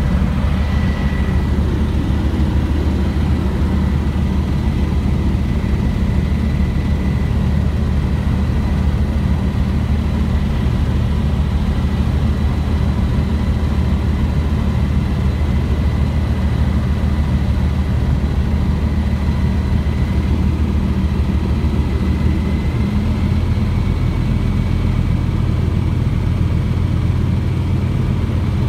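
Van's RV-12's Rotax 912 four-cylinder engine and propeller droning steadily, heard from inside the cockpit on final approach. The engine note changes about 23 seconds in.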